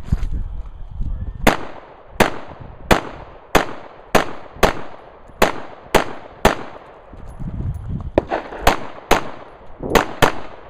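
Rifle fired in quick single shots: a string of nine shots about two-thirds of a second apart, a pause of about two seconds, then four more, each with a short echo.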